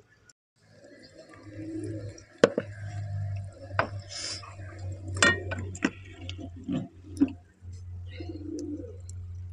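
Metal cooking pots and a spoon knocking and clinking about six times at an aluminium karahi of onions in oil, over a steady low hum. A bird, likely a pigeon, coos now and then in the background.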